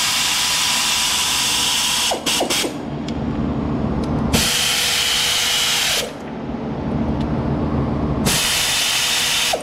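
Shop vacuum running with its hose nozzle worked in around the engine's timing cover and belt tensioner. The steady motor hum carries on throughout, while the rushing suction hiss comes and goes three times, at the start, mid-way and near the end, as the nozzle opening is blocked and freed.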